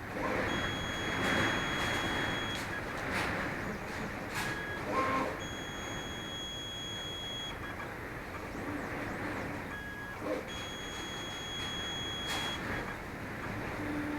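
CNC plasma table's gantry motors driving the torch through a dry test run with no arc lit: a steady high whine during three moves of about two seconds each, with brief pauses between, over a steady hiss.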